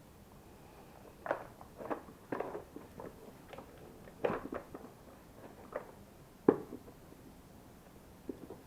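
Irregular clicks and knocks of plastic parts being handled and pulled apart while an LG bagless vacuum cleaner is disassembled, with a sharper knock about six and a half seconds in.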